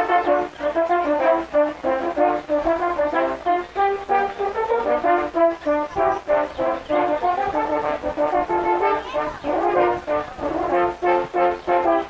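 A French horn quartet playing a tune in several parts, moving between short detached notes and held chords.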